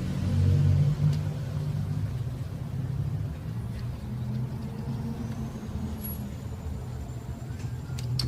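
Low, steady rumble of a motor vehicle's engine running, with its pitch shifting slightly, and a few faint clicks.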